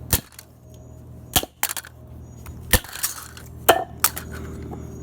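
Hard blows smashing into a plastic Nerf gun: four sharp impacts about a second apart, with smaller knocks between them.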